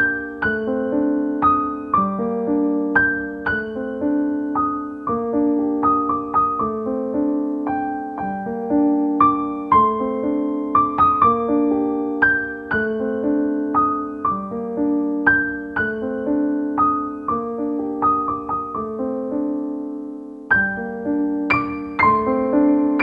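Solo piano music playing as a background track, a gentle melody of notes struck and left to ring.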